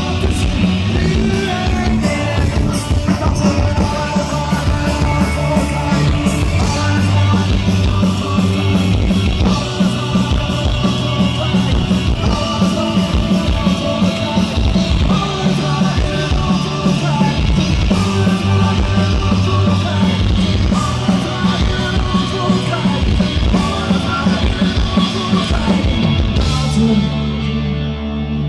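Punk rock band playing live over a PA: electric guitars, bass, drums and sung vocals, loud throughout. Near the end the drums and cymbals stop and a held low chord rings on.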